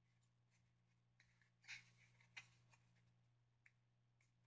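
Faint scrapes and clicks of flat skull-puzzle pieces being slid and pushed into each other's slots by hand, the two clearest a little under two seconds and about two and a half seconds in, over near silence with a steady low hum.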